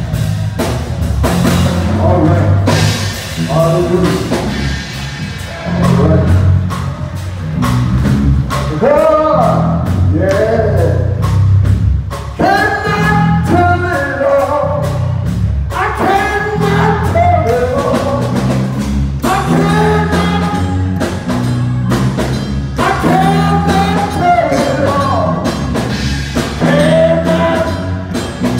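Gospel music: a singer with a band, drum kit keeping the beat under the voice.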